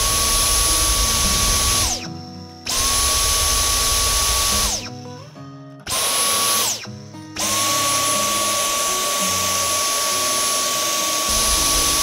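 Dyson V10 Fluffy+ cordless vacuum motor running with a high, steady whine in four runs, the last the longest. Each run starts with a brief rising whine and ends with a falling whine as the motor spins down. It runs evenly with a compatible replacement filter fitted, working normally.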